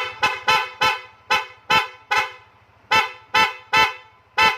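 Aftermarket PIAA electric horn on a Yamaha NMAX scooter, sounded in a quick series of short toots: about a dozen, in bursts of three or four with brief pauses between.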